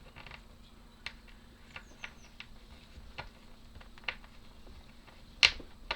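Light, scattered clicks and taps of laser-cut wooden puzzle parts and a small screwdriver being handled while a loose piece is re-fitted and tightened, with one sharper click about five and a half seconds in.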